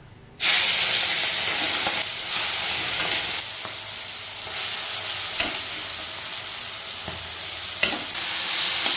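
Marinated prawns sizzling as they are dropped into hot oil in an iron kadai. The sizzle starts suddenly and loudly about half a second in and swells again twice as more prawns go in, with a couple of light clicks along the way.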